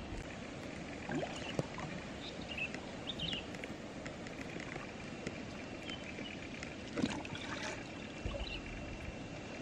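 Faint sloshing and small splashes of shallow river water as a bamboo tube eel trap is moved and set under the surface by hand, with a few light knocks, the most distinct about seven seconds in.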